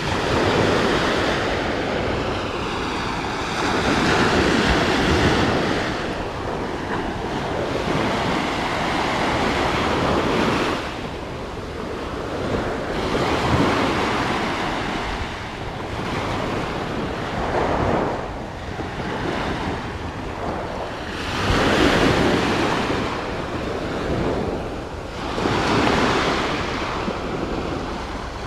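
Surf breaking and washing up the beach, the noise swelling and falling every few seconds as each wave comes in, with wind buffeting the microphone.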